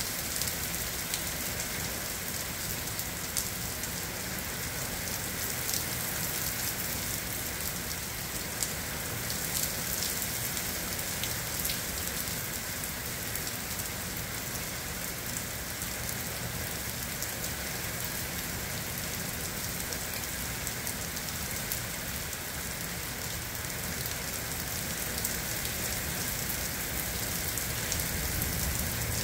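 Rain falling steadily in a summer thunderstorm, with scattered sharp taps of individual drops.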